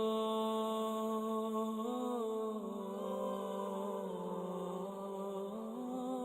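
Wordless vocal humming or chanting in long held notes that glide slowly down and then back up, with no instruments.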